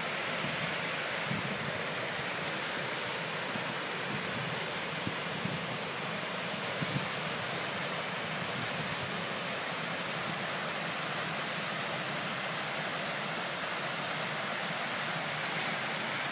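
Waterfall running high after heavy rain, moving a lot of water: a steady, even rush of falling water. A few brief low thumps sound in the first seven seconds.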